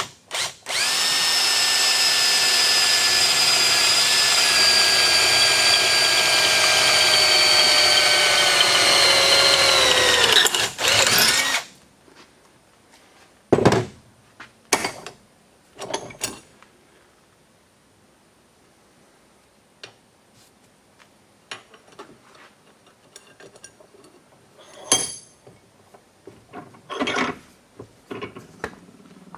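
Handheld power drill with a twist bit drilling through a steel bracket held in a bench vise. It runs as a steady whine for about ten seconds, dropping in pitch near the end, then gives a short second burst. After that come scattered knocks and metal clinks as the bracket is turned and reclamped in the vise.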